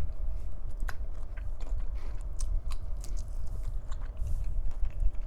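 Close-miked chewing and biting of cold cooked shrimp: wet mouth sounds with many small clicks and crunchy snaps scattered throughout.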